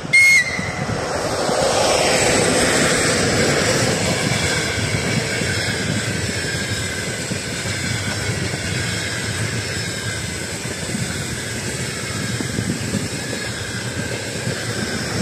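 TEP70 diesel passenger locomotive: a brief high toot of its whistle about a quarter-second in, then the locomotive passes close with its diesel engine running and a falling pitch as it goes by. After that comes the steady rolling noise of the passenger coaches' wheels on the rails.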